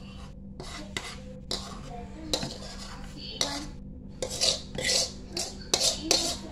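A utensil scraping thick chili sauce (sambal) out of a cooking pan into a bowl: a run of short scrapes and knocks against the pan, loudest in the second half.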